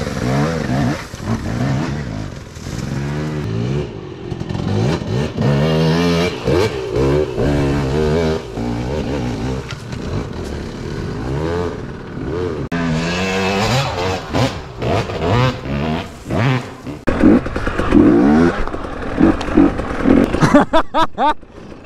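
Two-stroke dirt bike engine revving up and down under load, the pitch climbing and falling again and again, with short quick throttle blips near the end.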